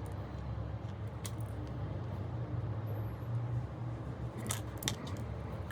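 A few small sharp clicks, like tools and small parts being handled during a phone teardown: one about a second in and two near the end, over a steady low hum.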